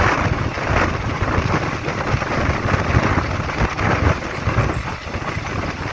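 Steady rumble and rush of a moving passenger train running along the track.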